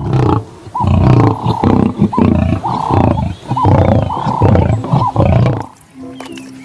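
A lion roaring in a series of rough, repeated calls that stop about a second before the end.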